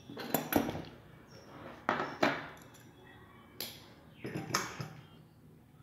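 Metal concealed cabinet hinge and screws being handled on a wooden cabinet door: a series of short knocks and light metallic clinks, mostly in quick pairs about a third of a second apart. No drill is running.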